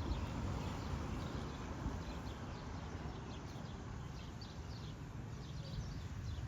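Footsteps on pavement over a steady low background rumble, with light irregular ticks.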